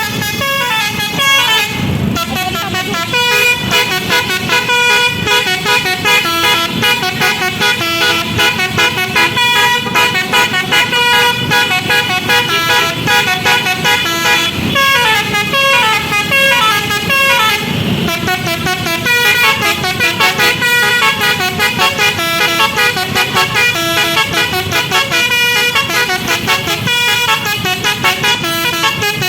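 Bus telolet horn of the Basuri type, a set of horn trumpets playing a long melodic tune note by note. It plays quick stepping notes throughout, with short falling runs that come back several times.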